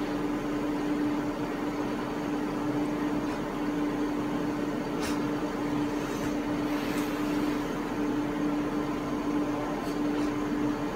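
Steady machine hum with a constant low tone, with a few light clicks around the middle and near the end.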